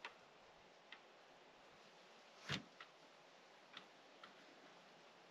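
Faint, scattered knocks and clicks, about six at uneven spacing with the loudest about two and a half seconds in: small handling knocks of hands and tools working on a wooden antenna mount on a log cabin wall.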